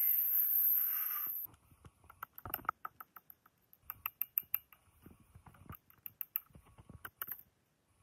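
Angle grinder running with a steady high whine, cutting off abruptly about a second and a half in. Then a scattered series of short metal knocks and clinks as the end cover of a steel air-conditioner compressor shell is pried and hammered loose.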